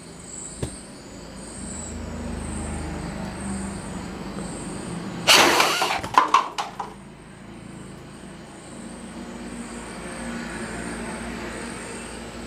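A short, sharp burst of noise about five seconds in as a homemade dart gun's shot hits a pyramid of paper cups, followed by a quick clatter of light paper cups knocking together and tumbling onto the table. A steady low hum and a faint high pulsing chirp run underneath.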